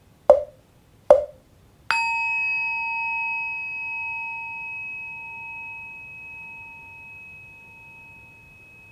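Two hollow wooden knocks of a mokugyo, then a struck Buddhist rin bell ringing out with a long, slowly fading tone: the 'pok pok chiin' comedy sound effect.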